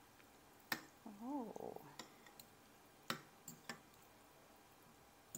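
Light, sharp clicks and taps from things being handled at a table, a second or so apart. About a second in there is a short hummed 'mm' that rises and falls in pitch.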